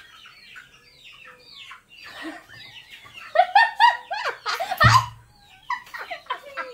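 Young women laughing: a burst of laughter starting about three seconds in, with a low thump near its end.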